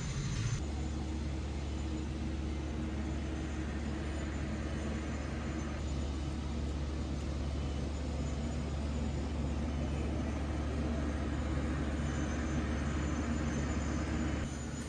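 Road-construction machinery, an asphalt paver among it, running: a steady low engine rumble that grows a little louder near the end.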